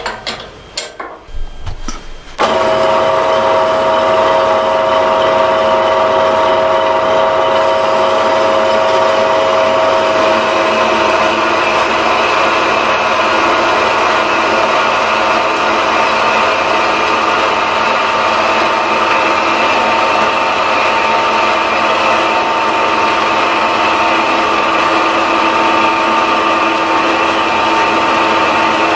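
Metal-cutting bandsaw switched on after a few clicks of handling about two seconds in, then running steadily with its blade cutting through a metal workpiece clamped in the vice.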